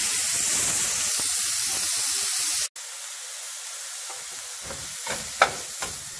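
Chopped onions and whole spices sizzling in hot oil in a nonstick frying pan as they sauté. The sizzle drops abruptly about two and a half seconds in and goes on more quietly, with a few sharp clicks of a wooden spatula stirring near the end.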